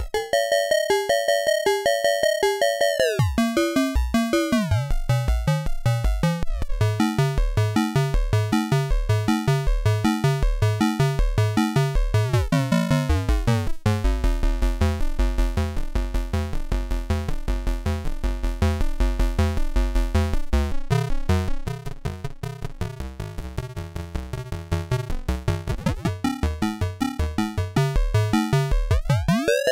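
Eurorack modular synthesizer sequence played through a DIY sample-and-hold module triggered at audio rate, chopping the signal into a bit-crushed sound. A fast repeating note pattern, with sweeping aliasing tones near the start and near the end as the sampling rate is turned, and a quieter stretch about two-thirds of the way through.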